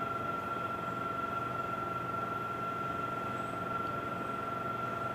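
A steady mechanical hum with a constant high whine.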